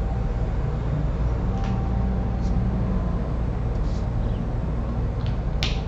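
Steady low room hum, with a few faint, short scratches of a pen writing on a notepad.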